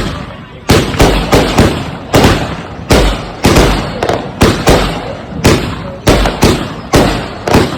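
Consumer firework cake firing a rapid run of aerial shots, each bursting with a sharp bang and a rolling echo, about three bangs a second at uneven spacing.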